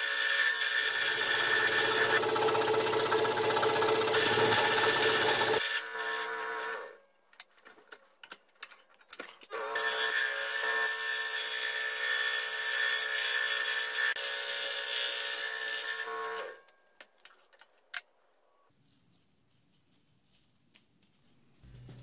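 Scroll saw running and cutting a circle through a wooden blank. The saw stops about seven seconds in, starts again about three seconds later and cuts until about sixteen seconds in, then falls quiet apart from a few light handling clicks.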